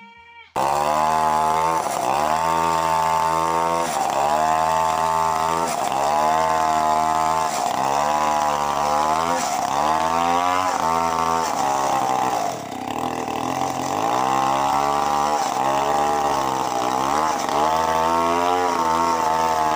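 Large Stihl chainsaw cutting into a log under load. It starts abruptly about half a second in, and its engine pitch sags and recovers every second or two as the chain bites into the wood, with a deeper dip about two-thirds of the way through.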